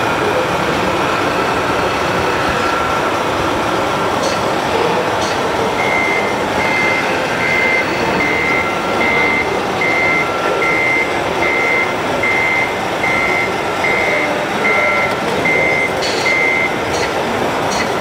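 Electronic reversing-warning beeper of an RC model truck's sound module, a steady run of short high beeps about one every 0.8 s, starting about six seconds in and stopping about a second and a half before the end, over the steady hum of a busy exhibition hall.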